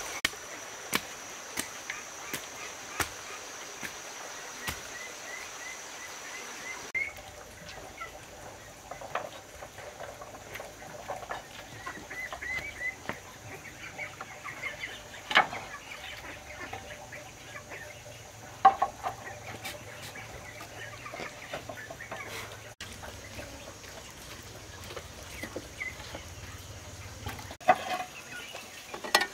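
Chickens clucking and calling, with short high chirping calls now and then. Sharp taps come about once a second for the first several seconds, and a few louder knocks come later.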